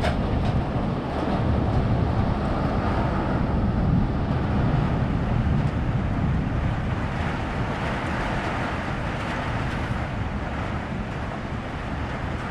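Hailstorm: a steady roar of wind and heavy hail and rain beating on the building and its windows, with a deep rumble underneath and a few sharp clicks of hailstones striking the glass.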